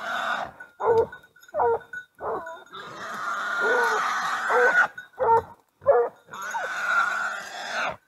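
Scent hounds barking in short, separate barks while they hold a wild boar at bay. Two longer, rougher cries of about two seconds each come a few seconds in and near the end.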